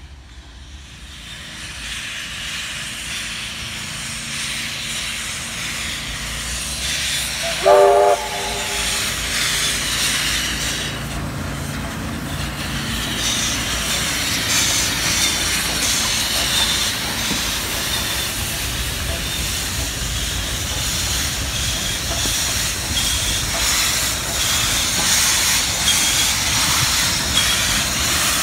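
Beyer Garratt steam locomotive 6029 passing close by, hissing steam from around its cylinders, with clattering wheels that grow louder as it nears. About eight seconds in, a short whistle blast, several tones sounding together, is the loudest sound.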